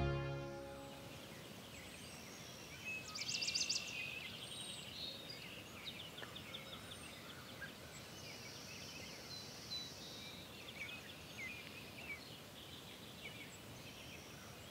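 Several songbirds singing and calling over a faint steady hiss of outdoor background, with a rapid trill about three seconds in as the loudest moment. Outro music fades out at the very start.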